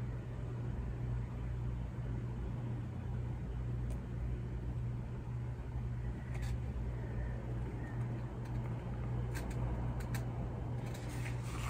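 Steady low mechanical hum. A few light clicks and taps come near the end as the glued wooden crates are handled and turned.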